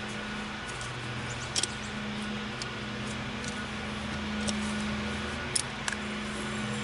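A steady low motor hum with a few short, sharp metallic clicks from clamps being worked against the tire and rim.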